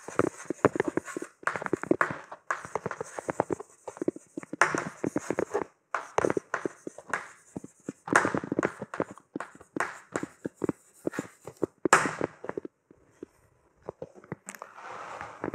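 Chalk tapping and scratching on a chalkboard as words are written: a quick, irregular run of sharp taps and short scrapes that stops for a second or two near the end.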